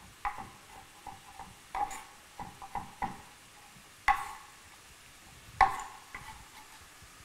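A utensil clinking and scraping against a cooking pot in irregular strokes as onions are stirred in olive oil, with the sharpest knocks about four and five and a half seconds in.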